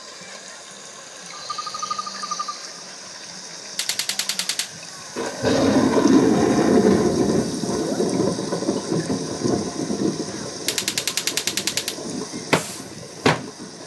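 Halloween haunt display going off around a wooden crate: two short bursts of fast rattling, a loud hiss lasting about five seconds, and two sharp knocks near the end.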